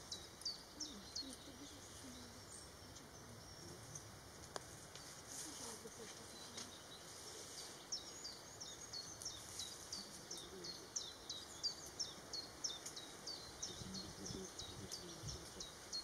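A bird calling in a rapid series of short, high, downward chirps, about three a second, pausing for several seconds in the middle, over faint outdoor background noise.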